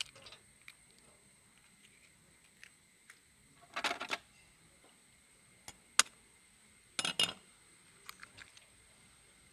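Eggs being cracked against a stainless steel bowl: a few short, sharp taps and clicks of eggshell on metal, spread out with quiet between.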